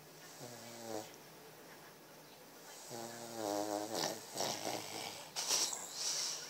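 Snoring: a short buzzing snore about half a second in and a longer one about three seconds in, followed by a harsher, hissy stretch of breathing with several short rasps.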